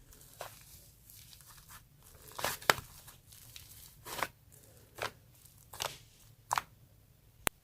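Hands squeezing and pulling apart a soft whipped-cream-and-flour dough, making short crackly tearing and squishing sounds every second or so, with a sharp click near the end.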